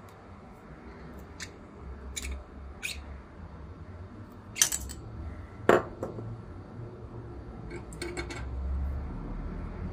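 Metal parts of a hand coffee grinder clicking and clinking as it is taken apart: a few light clicks, then two louder metallic clinks near the middle, the second ringing briefly, and a quick run of small clicks near the end, over a low steady rumble.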